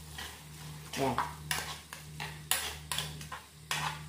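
Spaghetti being tossed in a thick creamy sauce in a pot with tongs: repeated wet stirring and scraping strokes, about two a second, the tongs now and then knocking the pot. A steady low hum runs underneath.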